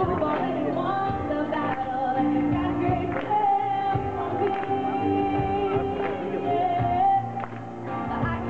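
A woman singing live, holding long notes, while strumming an acoustic guitar.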